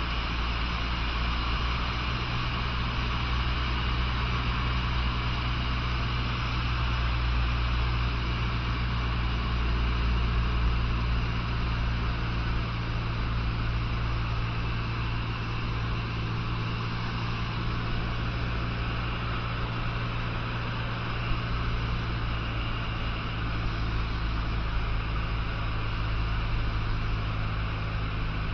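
Cessna 150's four-cylinder Continental O-200 engine and propeller droning steadily in flight, heard from inside the cabin, over a steady hiss.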